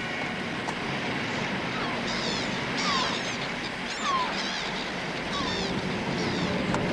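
Birds calling in short, repeated falling cries over a steady wash of sea and wave noise.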